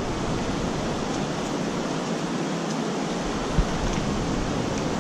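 Steady rush of flowing stream water, with one short, soft low knock about three and a half seconds in.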